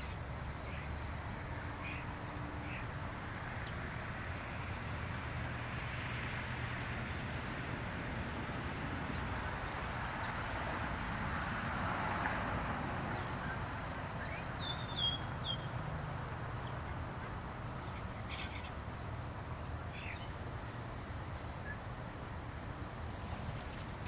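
A large flock of birds passing: the mass noise of many birds swells to a peak about halfway through and then eases, with a few short high chirps soon after the peak. A steady low rumble runs underneath.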